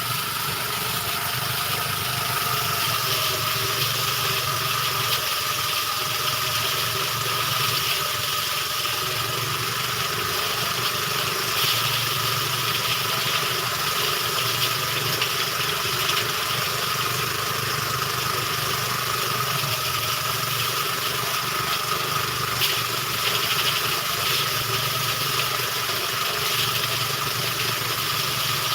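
Rice threshing machine running steadily: an even mechanical hum with a constant high whine and no change in speed.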